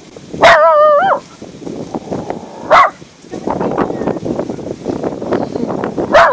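Dog barking: a long, high, wavering yelp-like bark about half a second in, a short bark near three seconds, and another yelping bark at the very end, with a rough noise underneath from about three and a half seconds on.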